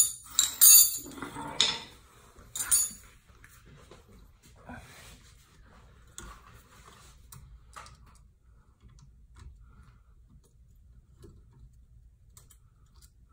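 Metal hand tools clinking and rattling against each other for the first few seconds as long-nose pliers are picked up. After that come faint, scattered metallic clicks as the pliers work at a golf cart's track rod end.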